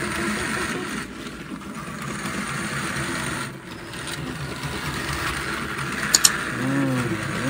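Small electric motor of a battery-powered toy locomotive whirring, with its plastic wheels and magnetically coupled plastic cars rattling along a wooden surface. Two quick sharp clicks about six seconds in.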